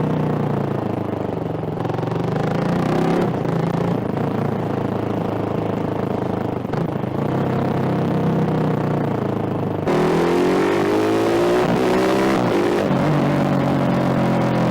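Hero Xpulse 200 single-cylinder motorcycle with a baffle-less modified exhaust, revving and accelerating, its pitch rising and falling. The sound changes abruptly and gets louder about ten seconds in.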